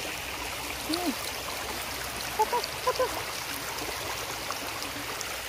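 Small river's current running steadily over shallows. Short pitched calls cut through it, once about a second in and several in quick succession around the middle.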